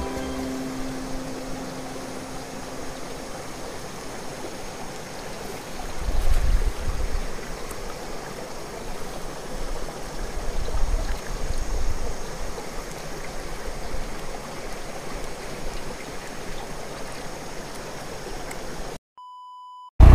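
Shallow rocky mountain stream trickling and running over stones, a steady water hiss with a few low rumbles about six and eleven seconds in. Near the end the water cuts out and a single electronic beep tone sounds for about a second.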